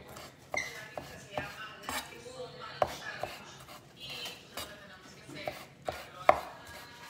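Kitchen knife chopping raw peeled shrimp on a wooden cutting board: irregular, sharp knocks of the blade against the board.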